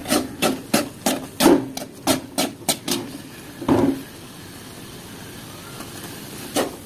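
Steel slotted spatula scraping and knocking against an aluminium kadai as instant noodles are stirred, about two to three strokes a second, with one louder knock about four seconds in. A steady hiss from the hot pan follows for a couple of seconds before the scraping starts again near the end.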